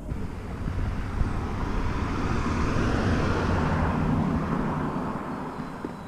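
A passing vehicle: a broad rush of noise that builds over about three seconds and then fades away.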